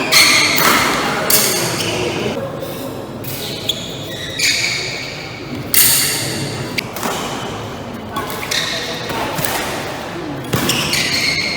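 Badminton rally in a sports hall: sharp racket strikes on the shuttlecock, a handful spaced one to four seconds apart, with short squeaks of shoes on the court and echoing spectator chatter.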